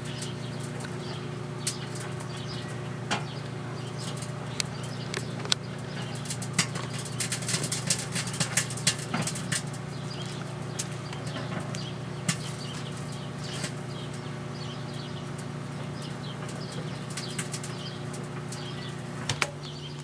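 Microwave oven running with a steady hum while the CD inside arcs, giving scattered sharp crackles and snaps that are thickest around seven to nine seconds in. The hum changes near the end.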